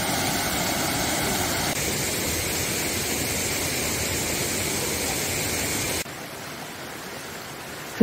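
Rushing water of a mountain stream tumbling over a small rocky cascade, a steady even roar. It drops to a quieter rush about six seconds in.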